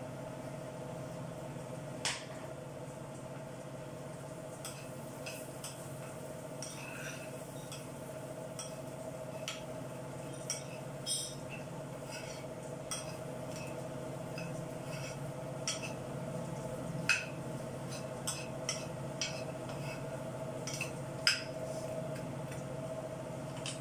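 Metal ladle clinking and scraping in a small frying pan as nuts are stirred and tossed, with scattered sharp knocks, the loudest about two seconds in, around the middle and near the end. A steady hum runs underneath.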